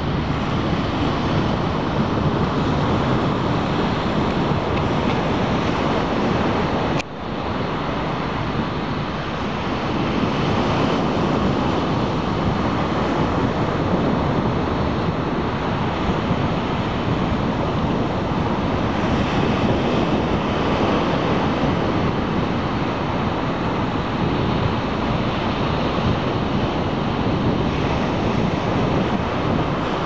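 Ocean surf breaking and washing up the sand in a steady, continuous rush.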